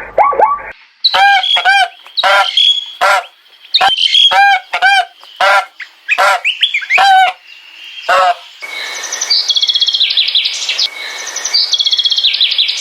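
Bird calls: a run of about a dozen short, loud honking calls, then rapid high-pitched chirping for the last few seconds.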